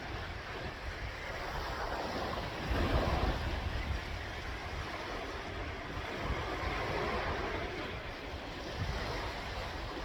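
Sea waves washing in, swelling louder about three seconds in and again around seven seconds, with wind rumbling on the microphone.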